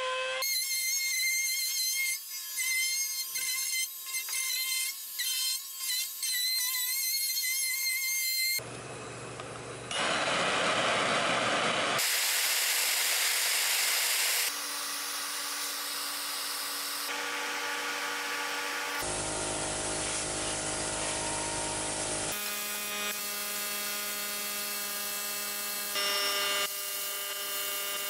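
A compact wood router whining steadily as it trims a board edge, its loudness dipping several times over the first eight seconds or so. After that come abrupt cuts through other workshop tool noises, each lasting a few seconds.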